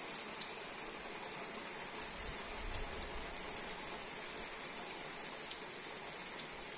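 Steady rain falling, an even hiss with a few sharper drop taps now and then.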